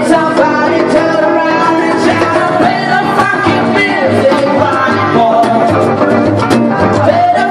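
Live acoustic band: two acoustic guitars played with a hand drum keeping the beat, and a voice singing a melody over them.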